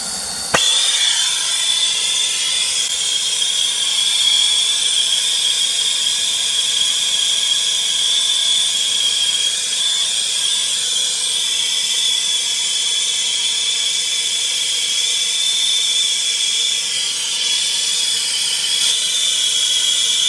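Turbo torch flame hissing loudly and steadily, with a high whistling tone over the hiss, as it heats a fluxed copper pipe fitting for soft soldering. The hiss comes on about half a second in.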